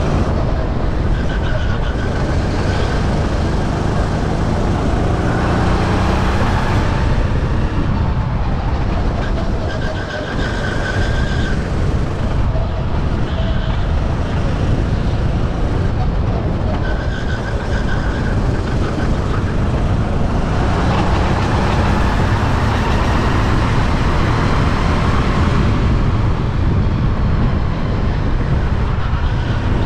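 Sodi RT8 racing kart engine running hard, its pitch climbing as it accelerates and dropping as it slows, several times over.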